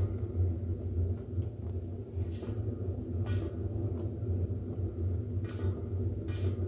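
Pottery wheel motor running with a steady low hum, while a hand trimming tool scrapes clay off the spinning pot in short rasps about every second.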